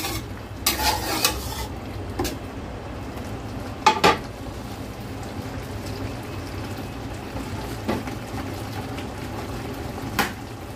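A metal spatula stirring, scraping and knocking against a stainless steel wok of seafood simmering in sauce, with a handful of sharp clanks, the loudest about four seconds in, over a steady low bubbling.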